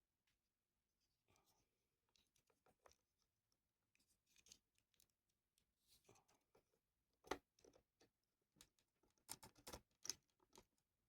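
Near silence broken by scattered faint clicks and scratching handling noises, with a sharper click about seven seconds in and a quick run of clicks a couple of seconds later.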